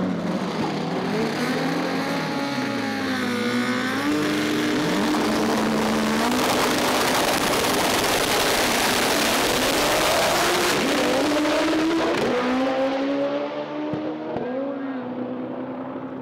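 Honda drag race car and a second drag car revving at the starting line, then launching at full throttle down the quarter-mile. Their engines are loudest through the middle and fade away over the last few seconds.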